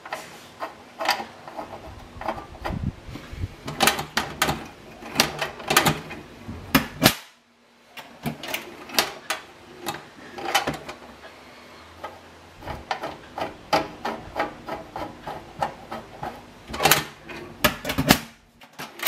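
Metal clicks and knocks from an old combination-lock hand safe being handled, some ringing briefly, in an irregular run with a short break about seven seconds in.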